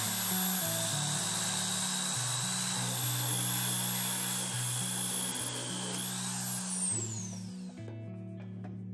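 Handheld corded power tool running at speed as it cuts a notch in a wooden boat stringer, with a steady high whine; about six seconds in it is switched off and winds down with a falling whine. Background music with steady low notes underneath.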